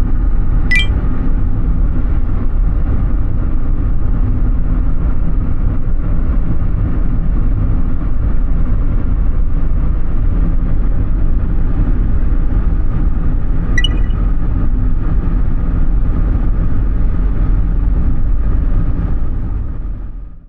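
Steady low rumble of a moving vehicle, with a brief metallic clink under a second in and another about fourteen seconds in; the rumble fades out at the very end.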